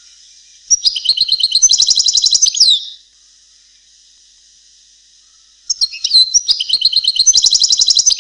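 European goldfinch singing, in the Palestinian-style song kept as a tutor song for young birds. Two song phrases of about two seconds each, built from fast repeated notes and trills, each ending on a falling note. A faint steady hiss lies between them.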